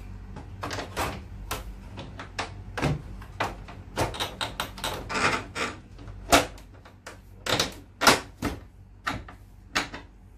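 Irregular clicks and knocks of the plastic air filters and hinged front panel of a Videocon split-type AC indoor unit being fitted back and snapped shut by hand, the loudest about six and eight seconds in.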